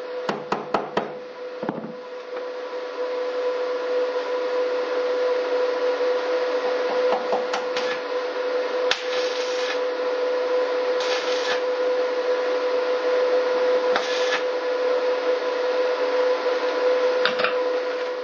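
A few sharp metal taps in the first second, then electric arc welding on the steel crossmember of a car's front end: a steady hiss that holds for about fifteen seconds without a break, over a constant hum.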